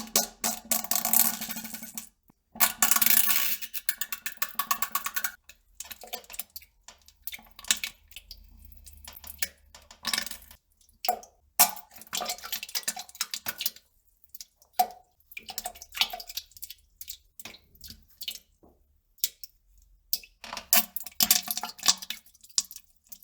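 Pooping and farting sounds: irregular spurts of sputtering and splashing into water, broken by short pauses, with longer spells near the start and near the end.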